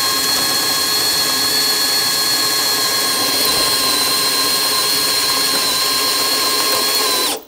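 Makita XPH14 18V brushless hammer drill in speed one, boring through a wooden board with a Diablo Speed Demon spade bit. The motor's whine holds an even pitch under load, then dips and stops abruptly just before the end.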